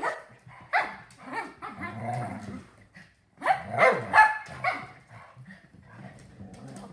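A Standard Schnauzer and two toy poodles play-fighting: sharp barks with low growling between them, a quick run of barks about halfway through, then quieter scuffling.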